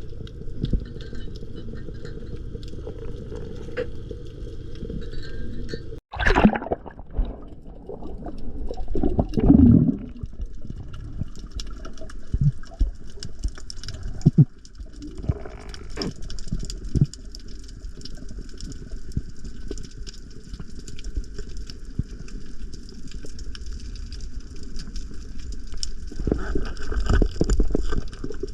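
Muffled water noise from a camera in the sea, a steady low rush with gurgling and bubbling surges. There is a sudden break about six seconds in, followed by louder swells.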